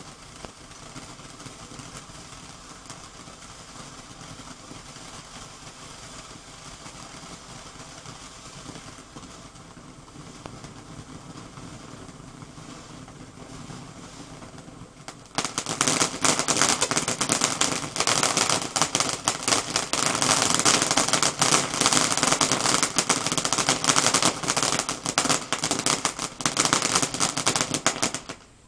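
A ground fountain firework spraying sparks with a steady hiss. About halfway through it suddenly breaks into loud, dense crackling, which stops abruptly near the end.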